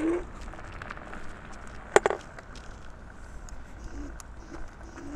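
Electric scooter ridden across concrete slabs, with a sharp double clack about two seconds in and a faint steady whine after it. Pigeons coo at the start and near the end.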